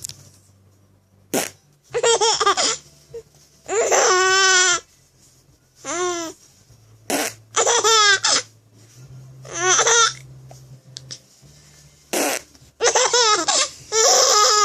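A six-month-old baby laughing in high, squealing bursts, about every two seconds. Short fart sounds come just before several of the bursts and set off the laughter.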